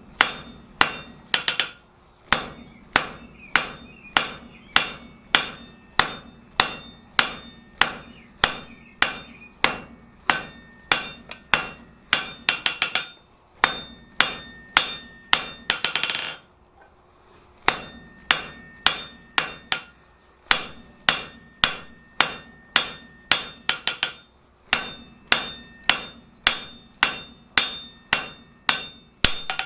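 Hand hammer striking a red-hot 5/8-inch mild steel rod on the anvil's edge with half-on, half-off blows, drawing down the end. Steady blows about two a second, each ringing off the anvil, with a short pause a little past halfway.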